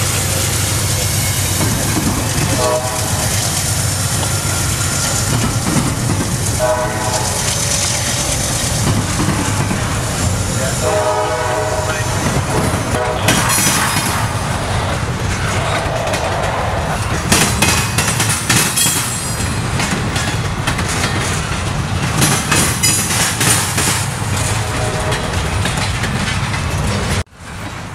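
CSX double-stack intermodal freight train passing close by: steady rumble of the locomotives and the loaded container well cars, with three short blasts of the locomotive horn in the first twelve seconds. After that the wheels clack and knock over the rail joints and crossing, with some brief wheel squeal.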